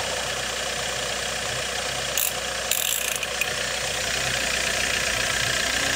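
Kia Sorento's 2.5 L D4CB four-cylinder diesel idling after its cylinder-head replacement, heard at the open oil filler neck with a lively 'playing' sound: a sign that the injector sealing washers are intact, since the mechanic says this sound disappears when a washer burns through. A couple of short hisses come about two and three seconds in.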